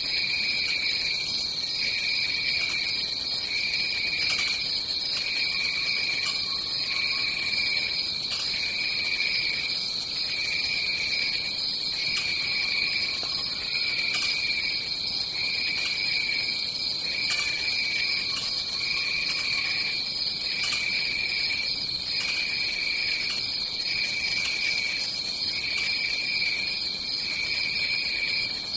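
Tropical rainforest insect chorus: a steady high-pitched buzz with a lower trill that pulses about once a second.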